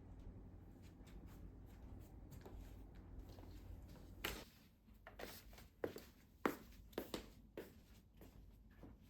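Light clicks and taps of small objects being handled, about ten of them starting about four seconds in, over a faint low hum.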